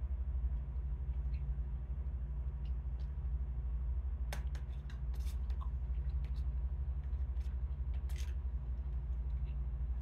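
A metal fork clicking and scraping against a black plastic meal tray while eating, a few sharp clicks clustered about four to five seconds in and again near eight seconds, over a steady low hum.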